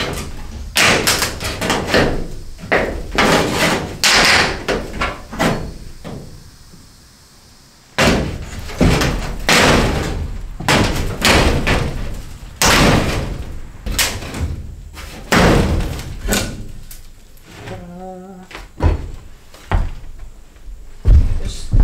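Repeated bangs and clatter of corrugated metal siding being knocked and pried at with a hand tool to free it from the staples along the top of the stud wall. The blows come in uneven runs, with a pause of about two seconds a third of the way in.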